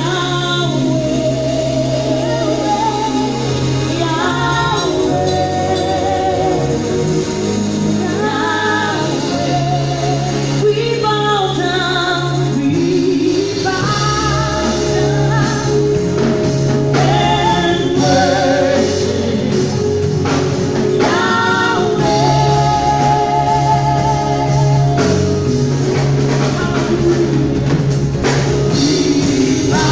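Live gospel song: a woman singing into a microphone in phrases over a band of electric guitars, bass guitar and drums, with a steady bass line underneath.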